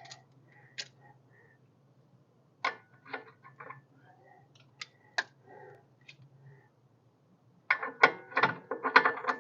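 Metal hand tools and sockets clinking and rattling as they are handled: scattered single clinks, then a dense clatter of metal near the end.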